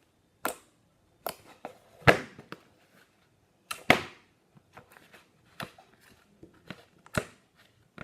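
Clear slime being pressed and pulled by hand, giving sharp pops and clicks at irregular intervals, about one a second, the loudest two about two and four seconds in.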